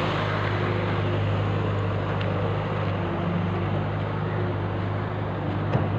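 John Deere excavator's diesel engine running steadily nearby, an even low hum that does not change.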